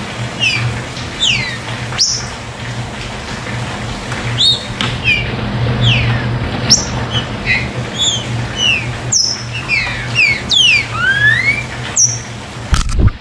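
Green-winged saltator singing, a run of short whistled notes that glide down and up, over a steady low hum. A brief low thump comes near the end.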